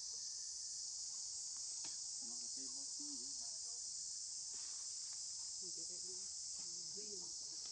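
Steady high-pitched insect chorus that holds without a break. A few faint, short, wavering voice-like sounds come and go underneath.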